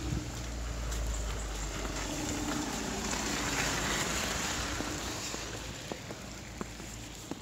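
A vehicle passing on a wet road: tyre hiss swells to a peak about halfway through and fades away, with a few light footsteps near the end.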